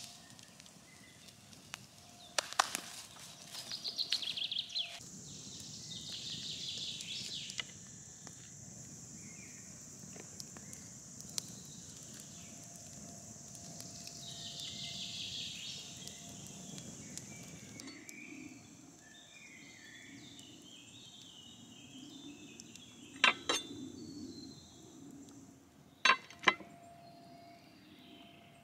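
Forest ambience: birds chirping and a steady high hiss through the middle. A few sharp crackles from a wood campfire come near the start, and sharp clicks near the end as raw shrimp shells are peeled by hand.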